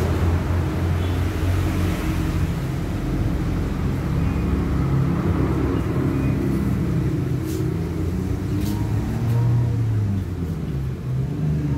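A motor running with a steady low hum whose pitch wavers slightly, with a few faint clicks over it.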